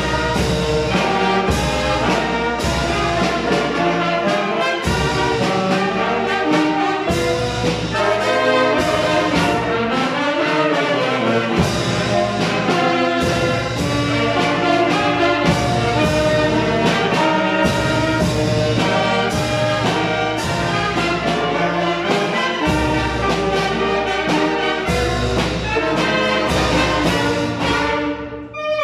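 Mexican banda playing a danzón: baritone saxophone, sousaphone, horns, trumpet and saxophones over bass drum and snare drum keeping a steady beat. The music drops off briefly near the end.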